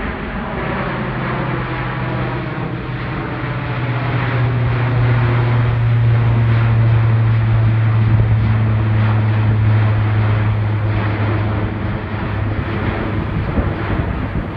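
Airbus A400M transport aircraft flying overhead on its four turboprop engines: a steady low drone with a strong low hum. It sounds more like turbine engines than propellers, and it grows louder to a peak about halfway through as the aircraft passes overhead, then eases off.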